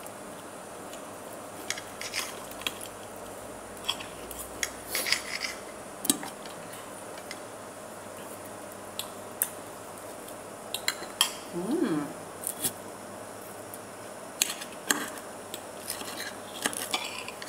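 Metal fork and knife clinking and scraping against a plate while eating: scattered light clicks and scrapes, over a steady faint hum.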